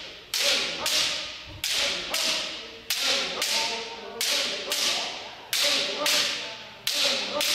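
Bamboo shinai cracking against kendo armour in repeated strikes, about eleven sharp hits, often in pairs about half a second apart, each ringing on in the echo of a large gymnasium. Shouted kiai go with the strikes.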